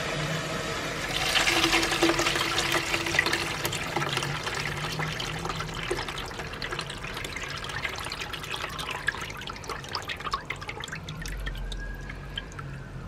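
Radiator flush water pouring from a hose into a partly filled bucket, splashing and gurgling. It surges about a second in, then eases off gradually. The water carries black iron-oxide sludge flushed out of the radiator.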